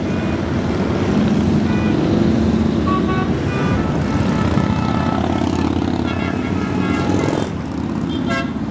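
Cruiser motorcycles and cars passing close by in a steady stream, engines rumbling, with a few short horn toots over the top.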